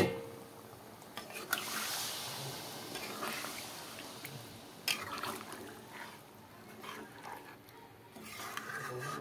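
Metal spatula stirring chicken and potato curry in a metal pan, with the thin gravy sloshing and bubbling. There are sharp clinks of the spatula against the pan right at the start, about a second and a half in, and again about five seconds in.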